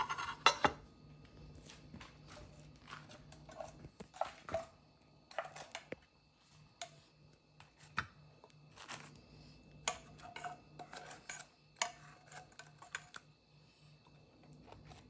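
Wooden chopsticks knocking and clinking against a metal saucepan and a ceramic plate in scattered short taps, as fried chicken wings are dipped in glaze and set down on the plate.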